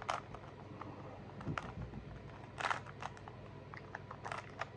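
Plastic Rubik's cube being turned by hand: short clicking rattles of the layers every second or so, over a steady low hum.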